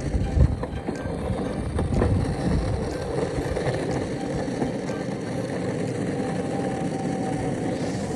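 Electric longboard with hub motors rolling along pavement: a steady rumble of the wheels on the road surface, gustier in the first couple of seconds.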